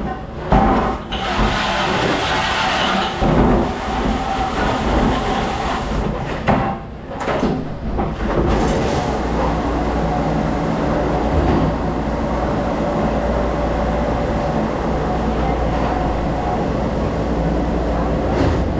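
Steady low mechanical rumble with irregular knocks and clatter in the first few seconds.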